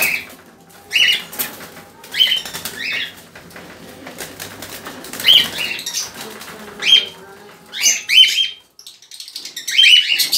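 Cockatiels giving short, harsh screeching calls in repeated bursts, with wings flapping.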